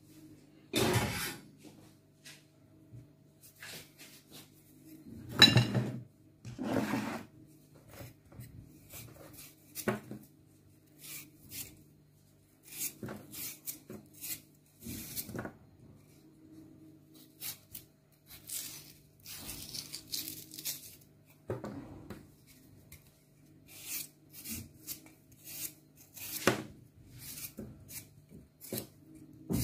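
Kitchen knife peeling a raw potato: many short scraping and cutting strokes against the skin, mixed with knocks of a plastic bowl and dishes handled on the counter, the loudest few knocks near the start. A faint low steady hum runs underneath.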